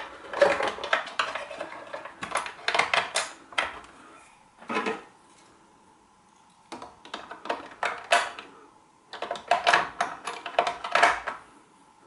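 Hard plastic parts of an electric shower clicking and knocking as its inner plastic cover is handled and fitted back into place, in quick bursts with a short pause about five seconds in.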